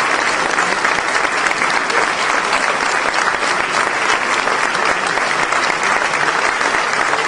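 A large crowd applauding steadily, a dense continuous clatter of many hands clapping.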